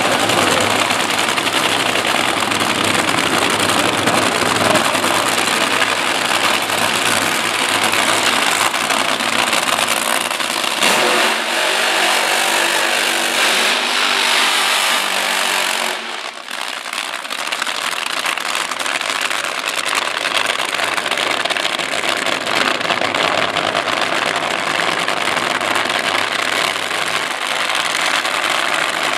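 Supercharged V8 Funny Car drag-racing engines running loud. Through the middle the engine revs harder and climbs during a smoky burnout, then cuts back suddenly about 16 seconds in and settles to a steadier, slightly quieter run as the cars head back to the line.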